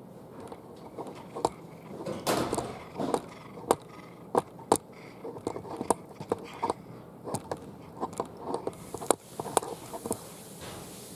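A string of irregular sharp clicks and knocks, a dozen or more, with short scuffling noises between some of them. A faint steady hiss comes in near the end.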